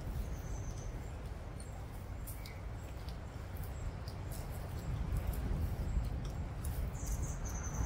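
Aldabra tortoises cropping and chewing fresh-cut grass and leaves, making scattered crisp clicks and crunches of bites, over a steady low rumble. Birds chirp briefly about half a second in and again near the end.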